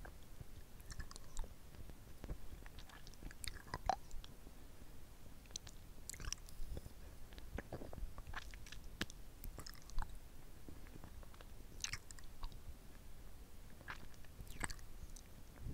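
Lollipop being sucked and licked close to a mini microphone held at the mouth: irregular wet clicks and lip smacks as the hard candy moves against the lips and tongue.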